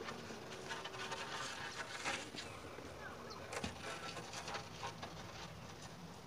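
A heavy precast concrete joist dragged over muddy, gritty ground: an uneven scraping and grinding, with a couple of sharper knocks about two and three and a half seconds in.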